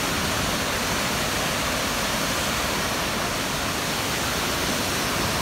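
Wide waterfall cascading over stepped rock ledges into a churning pool: a steady, even rush of falling water.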